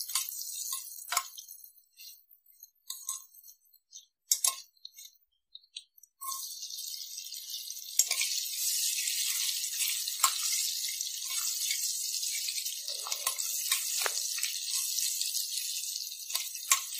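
Garlic cloves frying in hot oil with whole spices in a pressure cooker, a spatula tapping and scraping the pan. Scattered taps at first; about six seconds in a steady sizzle sets in and grows louder a couple of seconds later.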